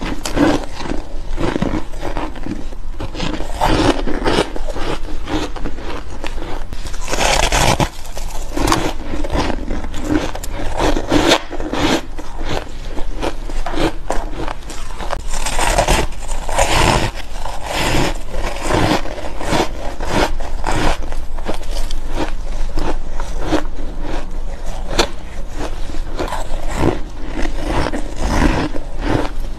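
Soft, powdery ice being bitten and chewed: a dense run of irregular crunches and scraping crackles, with louder bites now and then.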